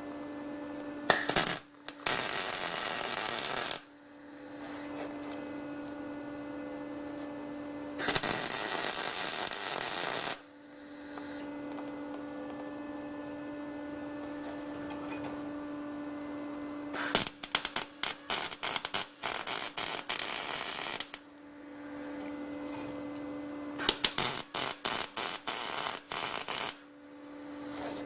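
Electric welder laying short bursts of weld to fill holes and cracks in thin sheet steel: four crackling bursts of a few seconds each, the last two sputtering and stopping and starting many times. A steady electrical hum sounds between the bursts.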